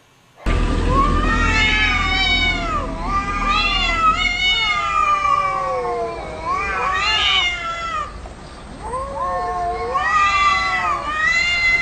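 Several kittens meowing at once, their overlapping calls starting about half a second in and going on without a break, over a low steady hum.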